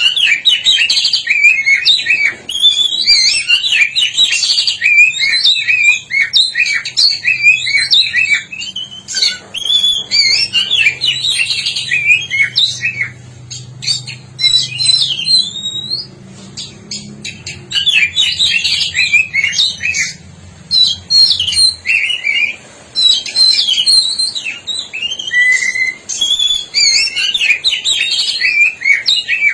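Oriental magpie-robin of the black-breasted form singing a long run of rapid, varied whistled phrases with a few brief pauses: the bird in full, constant song.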